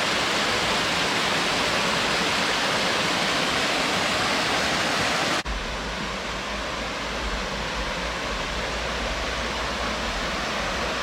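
Rushing water of the River Rivelin, a loud steady hiss in two shots cut together; after the cut, about five seconds in, it is slightly quieter with a deeper rumble underneath.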